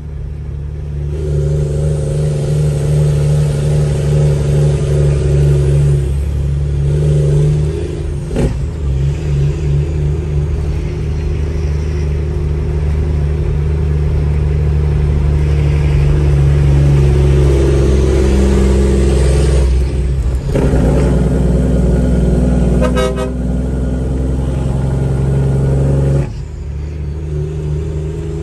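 Heavy truck's diesel engine running on the road, a steady low drone that builds over the first seconds, dips briefly about two-thirds of the way through and drops off sharply near the end. A sharp knock cuts through about a third of the way in.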